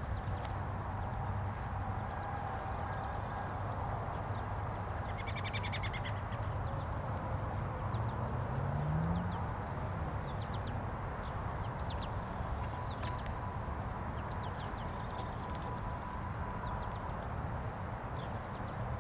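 Birds chirping over a steady low rumble of traffic, with distant outdoor warning sirens faintly wailing underneath, swelling and fading. A vehicle passes about eight to nine seconds in.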